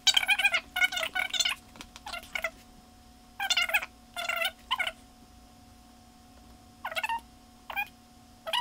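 A man's voice sped up several times over, so it comes out as short, high-pitched, chipmunk-like bursts of chatter with a pause in the middle, over a steady electrical hum.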